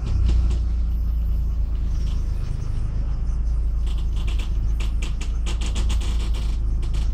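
City bus in motion, heard from inside: a steady low rumble of engine and road, with a run of quick clicks and rattles about four to six seconds in.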